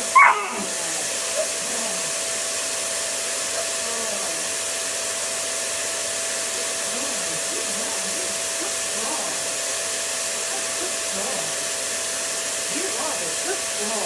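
Upright vacuum cleaner running steadily, an even whooshing motor noise with a constant hum. Just after the start a puppy gives one short, loud, high bark.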